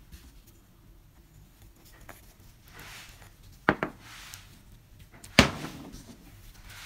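Gloved hands handling the rusty steel handle rod of an antique meat grinder and its wooden grip on a wooden workbench: soft swishes, a quick double knock about three and a half seconds in, and a sharper, louder knock with a short ring a little after five seconds.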